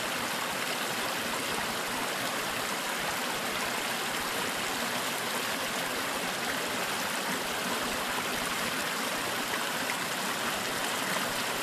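Small woodland stream running steadily over rocks and little cascades.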